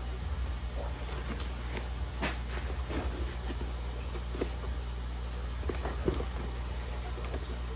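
Packaging being opened and the contents handled, with scattered light clicks and rustles over a steady low hum.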